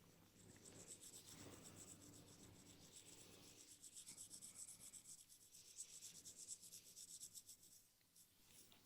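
Faint, fast rhythmic rubbing of hands over hair and skin during a massage.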